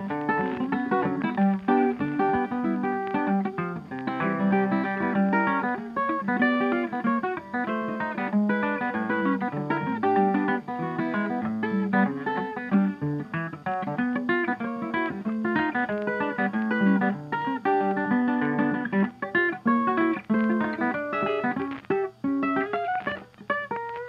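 Background music led by plucked guitar, played in quick, busy runs of notes.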